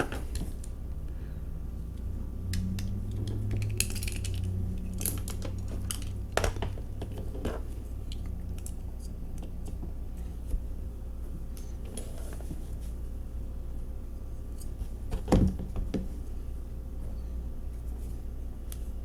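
Scattered small clicks and clinks of a Hot Wheels diecast car being taken apart by hand for a wheel swap: the metal body, plastic base and small wheels and axles knocking against each other and the work surface. A louder cluster of clicks comes about fifteen seconds in.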